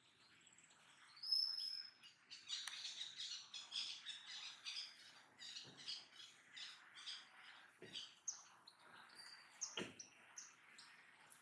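Capuchin monkey giving a long run of rapid, high-pitched chirps and twitters, after a single high whistled note about a second in. Three soft thumps sound during the chirping.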